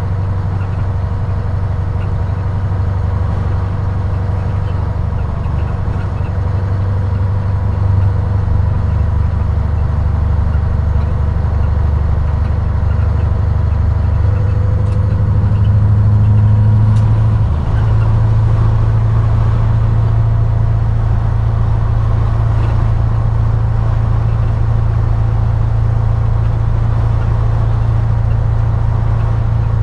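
Scania R143E500's 14-litre V8 diesel pulling steadily at motorway cruising speed, heard from inside the cab as a deep, even drone. It swells a little about halfway through, then dips briefly before settling back to a steady pull.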